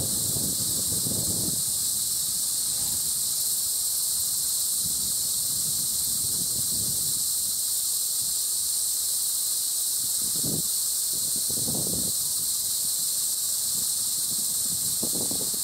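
Insects droning with a steady, loud, high-pitched hiss. Gusts of wind buffet the microphone now and then, most clearly about ten and twelve seconds in.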